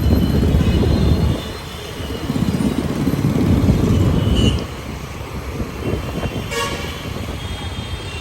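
City road traffic with a low rumble and a short vehicle horn toot about six and a half seconds in.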